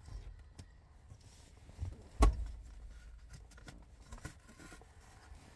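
Handling noise from a styrofoam takeout box and plastic fork: small clicks and rustles, with one sharp knock about two seconds in.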